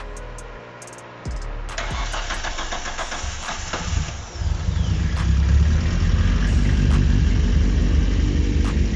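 Toyota 1.6 twin-cam 16-valve 4A-GE engine with an open cone air filter being started: the starter cranks for a couple of seconds, then the engine catches about four seconds in and runs loud and steady.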